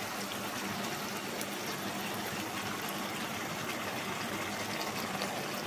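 Steady rushing sound of water.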